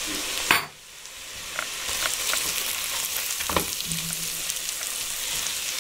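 Diced carrots, celery and onion sizzling in olive oil in a pot while a spatula stirs and scrapes them. There is a knock about half a second in, after which the sizzle dips and builds back up, with a few short scrapes of the spatula against the pot.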